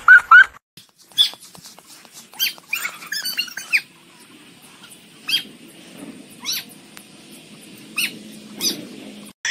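A chihuahua's squealing, laugh-like vocalization, loud, ending about half a second in. It is followed by a run of short, high animal calls and a few brief falling chirps over faint background noise.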